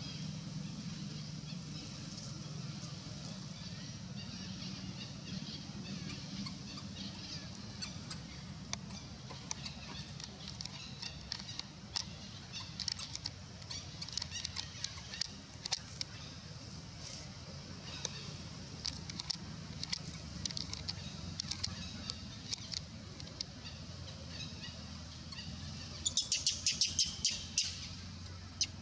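Birds chirping in short, high calls over a steady low hum. The calls are scattered at first and come thicker through the middle, with a quick rapid run of chirps near the end.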